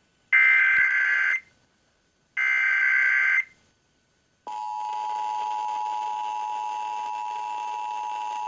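Emergency Alert System broadcast: the last two of the three SAME header data bursts, each about a second long with a short silence between, then the EAS two-tone attention signal (853 and 960 Hz together) held steady for about four seconds. These signals open a Required Monthly Test.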